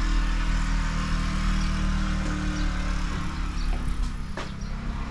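Steady low hum of an engine running nearby, with a single sharp click about four seconds in.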